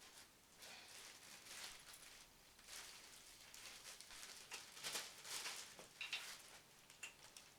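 Faint, irregular rustling and soft clicks of things being handled, as packaging and parts are moved about.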